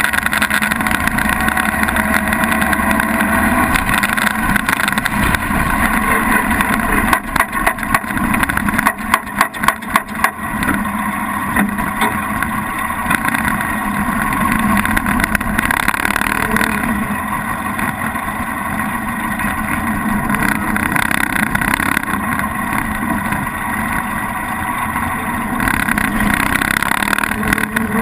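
Engine of a 1923 Diatto 20S vintage car running steadily. About eight to ten seconds in comes a run of sharp cracks.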